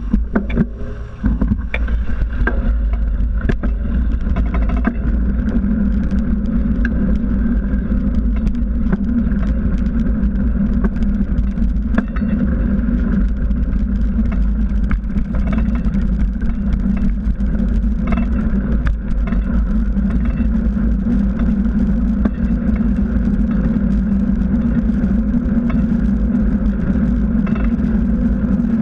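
Riding noise of a mountain bike on asphalt: steady, heavy wind rumble on the microphone with the hum of the knobby tyre rolling, rising sharply in the first second or so as the bike gets moving, with frequent small clicks and knocks from bumps in the road.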